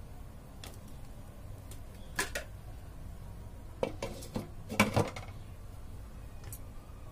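Glass pot lid set onto a metal cooking pot, covering the rice to steam on low heat: a few light clinks and knocks, with a cluster and the loudest clink a little before five seconds in as the lid settles on the rim.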